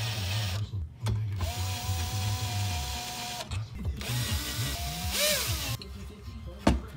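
Cordless 18V drill/driver running screws into an aluminium engine crankcase: three short bursts of the motor's whine, the middle one steady for about two seconds and the last one sweeping up and down in pitch as the trigger is eased. A single sharp knock comes near the end.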